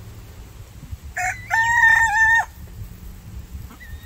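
A rooster crowing once: a single crow of a little over a second, starting about a second in.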